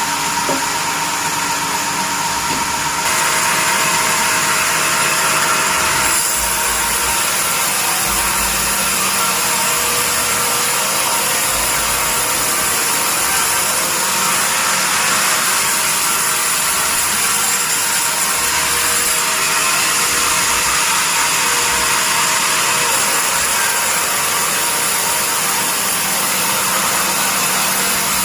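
Sawmill bandsaw running through a log: a steady, loud mechanical noise of the blade and machine, growing a little louder and brighter about three seconds in.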